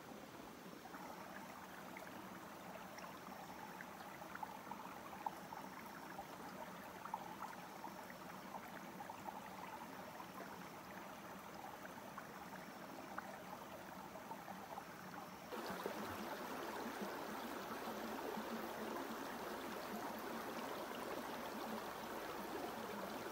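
A stream running with a steady rushing trickle, with a few faint ticks in the first half. It gets louder about fifteen seconds in.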